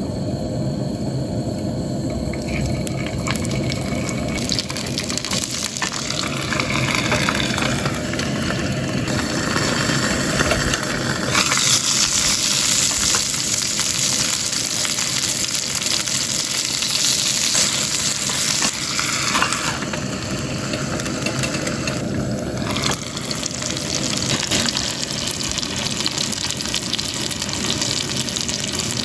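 Chicken-skin gyoza sizzling as they fry in a pan, a steady hiss that grows louder and brighter through the middle stretch.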